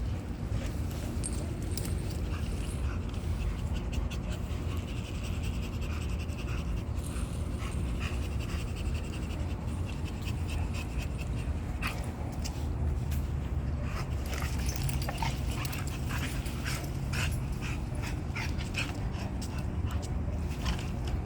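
Dogs panting, with a steady low rumble underneath.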